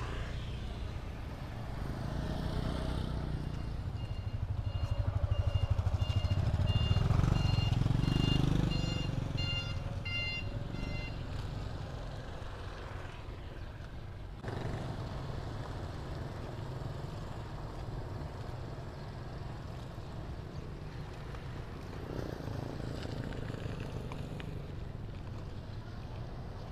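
A motor vehicle passes close by, its engine getting louder for several seconds and then fading, while a run of short electronic beeps at a few different pitches sounds for about eight seconds. After that comes a steady mix of busy street-market noise.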